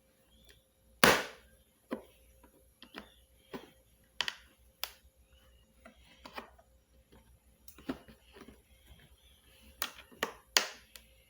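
Irregular sharp clicks and knocks, about a dozen, from plastic parts of a vacuum cleaner being handled during disassembly. The loudest knock comes about a second in, with a quick cluster of clicks near the end.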